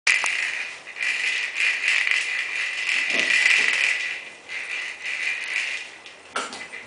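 Hanging ball toy rattling in repeated bursts as a dog tugs and shakes it, with a couple of dull knocks.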